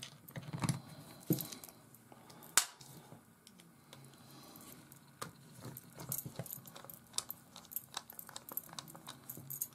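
Scattered small clicks and light rattles of screws and a screwdriver being worked into a multimeter's plastic back cover, with one sharper click about two and a half seconds in.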